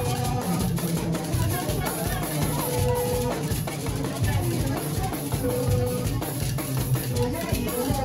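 Live praise music: drums and a beaded gourd shaker (shekere) keeping a steady beat, with long held sung notes over it.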